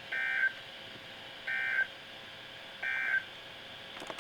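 Three short bursts of NOAA Weather Radio SAME digital data tones, a buzzy two-tone warble from a weather radio receiver, evenly spaced about a second and a third apart: the end-of-message code that closes a Required Weekly Test. A faint click follows near the end.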